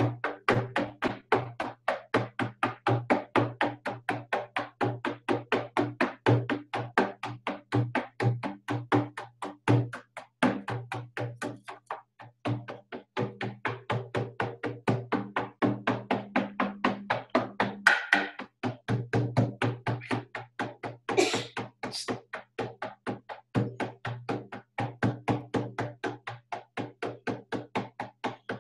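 Hide-headed frame drum beaten with a beater in a fast, steady shamanic journey rhythm, about four to five beats a second with a deep boom on each stroke. The beat pauses briefly twice, and a few short higher-pitched sounds cut in about two-thirds of the way through.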